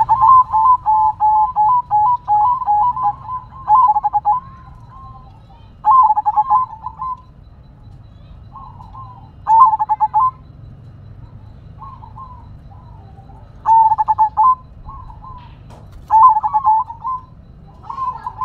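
Zebra dove (perkutut) cooing: a long run of quick, rolling coo notes for about the first four seconds, then shorter rolling phrases every few seconds.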